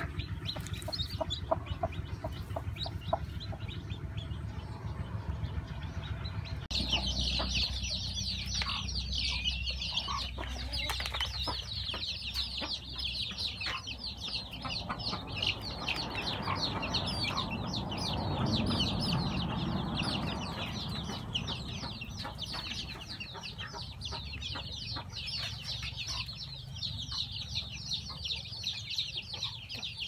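Young chickens in a pen peeping in a dense, continuous high-pitched chorus, taking over abruptly about seven seconds in after a quieter stretch of soft clucks. A low rumble swells briefly in the middle.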